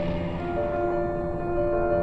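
Slow film-score music of long held notes that change pitch every second or so, over a steady low noise.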